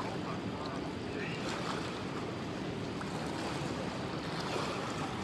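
Steady rushing of choppy river water, with wind buffeting the microphone.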